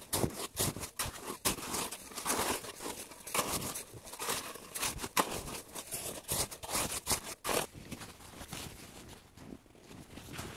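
Packed snow crunching and scraping in a rapid, irregular run of crunches that thins out about three-quarters of the way through.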